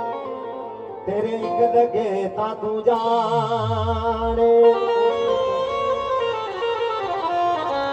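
Music: a wavering melody over steady held notes, with a deep tone sliding downward about three to four seconds in.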